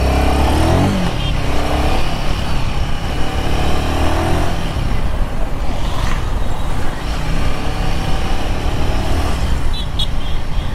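Royal Enfield Himalayan 450's single-cylinder engine running under way in city traffic, its pitch rising and falling with the throttle over the first few seconds. Steady wind and road noise run underneath.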